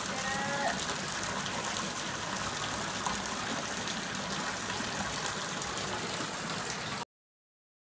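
Hot spring water rushing and splashing in a rock-lined outdoor bath, a steady rush that cuts off suddenly about seven seconds in.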